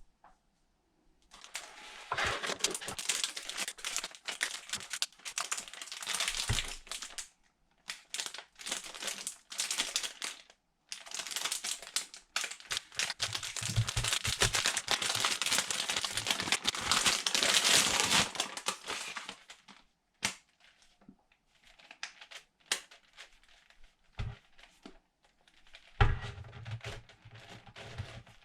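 Packaging crinkling and rustling as it is unwrapped and handled, in long stretches, then scattered clicks and knocks toward the end.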